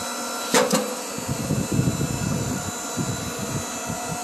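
8-ton hydraulic log splitter humming steadily while its wedge forces into a pine log that is not fully dry. A sharp crack about half a second in, then irregular creaking and crackling as the wood splits.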